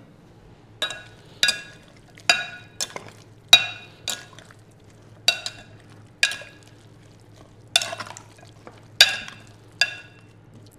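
Metal spoon clinking against a glazed terracotta bowl as chunks of bread and vegetables are stirred in it: about a dozen sharp, ringing clinks at uneven intervals, roughly one a second.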